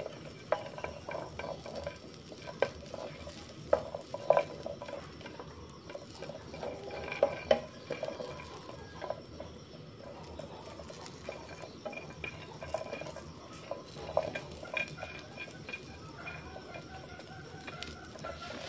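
Spatula stirring whole shallots, garlic cloves and star anise around a non-stick frying pan, with irregular clicks and knocks as the spatula and the pieces hit the pan.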